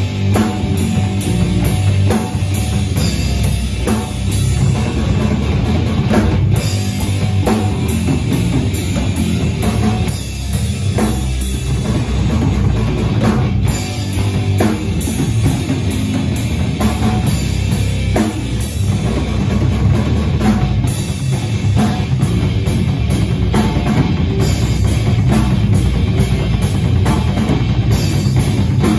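A live rock band playing loudly and steadily, with a drum kit driving a fast, even beat under the band.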